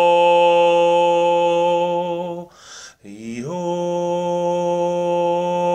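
A man's voice toning: one long vowel held on a steady pitch, then a breath in about two and a half seconds in, followed by a short upward slide into another long held note.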